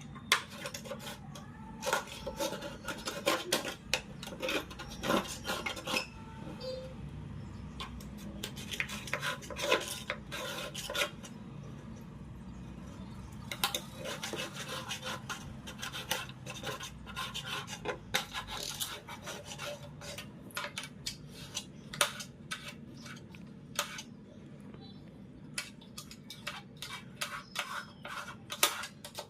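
Spoon scraping and tapping along a sliding window track, loosening dirt: many irregular scrapes and sharp clicks.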